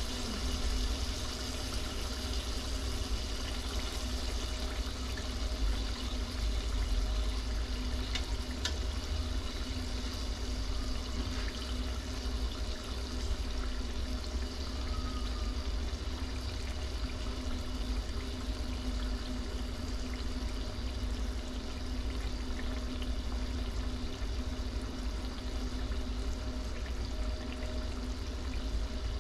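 Goat liver cooking in a pan: a steady sizzling hiss over a low rumble.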